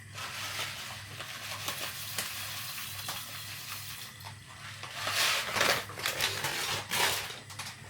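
Marinated jerk chicken pieces frying in a pan: a steady sizzle full of small crackles, swelling louder twice in the second half.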